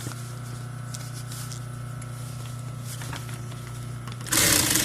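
Electric sewing machine stitching a long seam in fabric: a steady low running hum, then a much louder, rapid clatter starting about four seconds in.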